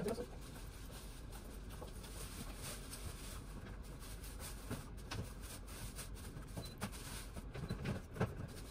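Vegetable peeler scraping the rind off a Korean melon: faint, irregular scrapes and light clicks as the blade strips the skin.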